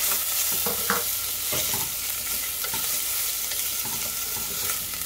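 Soaked jasmine rice and garlic sizzling in hot oil in a stainless steel saucepan: a steady sizzle. A wooden spoon stirs and scrapes through the rice in scattered short strokes.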